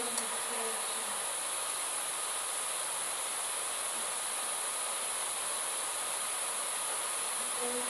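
Steady background hiss with a constant high-pitched whine over it, unchanging throughout: recording or line noise.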